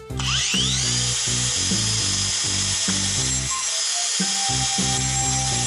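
Electric angle grinder with a thin cut-off disc switched on: its whine rises as the disc spins up during the first second, then it runs steadily at full speed.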